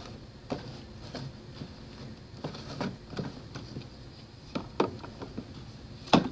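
Clear hard-plastic retail packaging of a Fidget Cube being picked up and turned over in the hand, giving a scatter of light clicks and taps, with a sharper knock near the end.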